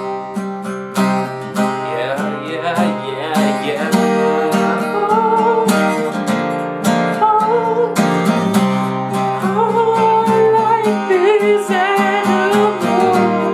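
Acoustic guitar strummed in a steady rhythm, with a wordless vocal melody wavering over it for most of the stretch.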